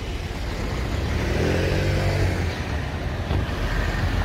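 A car drives past close by, its engine tone rising and then falling in pitch around the middle, over a steady low rumble of road traffic.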